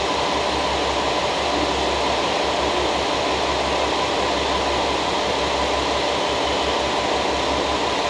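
KiHa 40-series diesel railcars standing with their engines idling: a steady rumble with a low, pulsing throb underneath.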